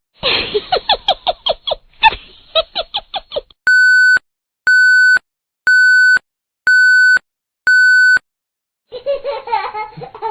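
A laughter sound effect in quick ha-ha pulses, then an electronic alarm beeping five times, evenly about once a second, each beep a steady high tone. Near the end a baby's voice sound effect begins.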